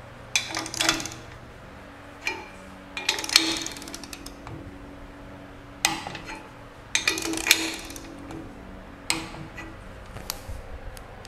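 Ratchet of a torque wrench clicking in about seven short bursts as it is swung back and forth, tightening nuts on studs to clamp a cylinder liner into a diesel engine block, first stage to 25 foot-pounds.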